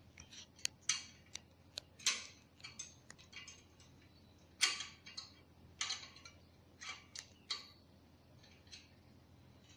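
Irregular small clicks and clinks of hard parts being handled: the mounting bracket and hardware of a Cooler Master Hyper 412S CPU cooler being fitted to the motherboard.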